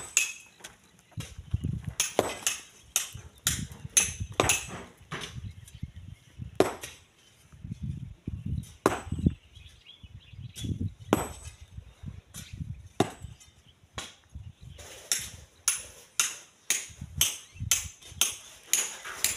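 Metal hand tools striking stone and gravel in a sand pit: irregular sharp clinks and knocks, one to three a second, with a short lull about two thirds of the way through, then faster strikes.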